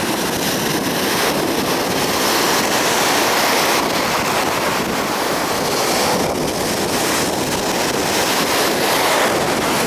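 Rough sea surf breaking and washing in close to the microphone, a loud steady rush of water, with wind buffeting the microphone.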